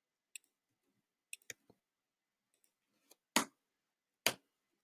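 Scattered single clicks of a computer mouse and keyboard, about seven in all, with two louder ones in the second half.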